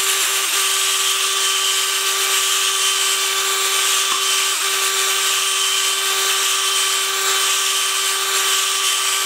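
Electric drill running steadily with a continuous whine, spinning an expanding mandrel lap coated in 120-grit silicon carbide compound as it is worked up and down in a Willys L134 tappet bore. The bore is being lapped to size so that slightly oversize tappets will fit.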